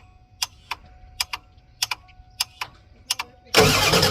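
Glow plug relay on a 7.3 IDI V8 diesel clicking over and over, in quick pairs about every three-quarters of a second. The clicking keeps on while the glow plugs cycle, which the owner is unsure is normal. Near the end the starter motor begins cranking the engine loudly.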